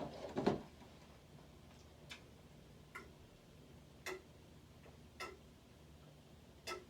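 Eating sounds at a seafood boil: a dull thump just after the start, then five scattered sharp clicks and cracks about a second apart, as crab legs and shrimp are cracked and eaten.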